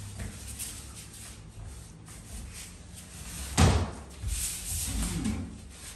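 Small paint roller rolling over a wall, a faint rasping hiss with the strokes, with one sharp thump about three and a half seconds in.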